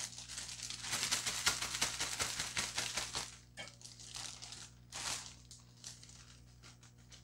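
Plastic zipper bag crinkling as it is handled with chicken and seasoned flour inside. The crinkling is dense for the first few seconds, then comes as two shorter rustles.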